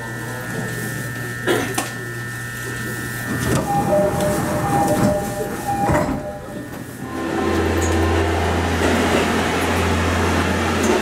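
Steady electric hum of a train standing at a station, with a couple of sharp clicks. From about seven seconds in, a Kururi Line diesel railcar's engine sets up a deep, steady drone as the train pulls out.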